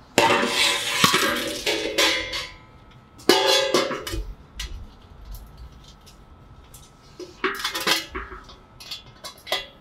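Large stainless steel cooker lid clanging against the steel cooking disc and ringing, once at the start and again about three seconds in, followed by small metallic clicks and taps as a handle and its screws are fitted to the lid.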